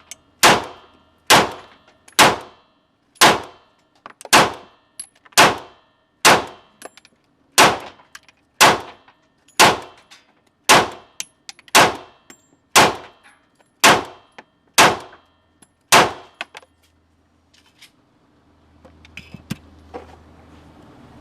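CZ P-09 pistol firing single shots at a steady pace, about one a second, some sixteen shots in all, each with a short metallic ringing tail. The firing stops about 16 seconds in.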